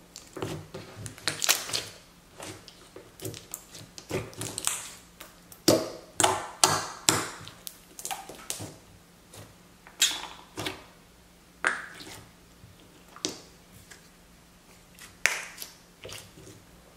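Clear glue slime with cubes of melamine sponge mixed in, being pressed and kneaded by hand: irregular wet squishes, clicks and pops, some in quick runs, a few much louder than the rest.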